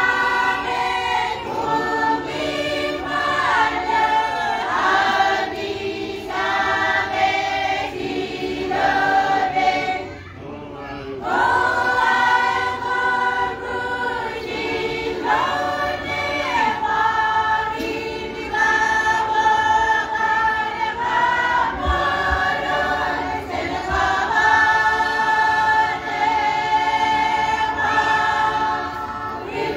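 A large choir of men and women singing together in long, sustained phrases, with a short break about ten seconds in before the singing resumes.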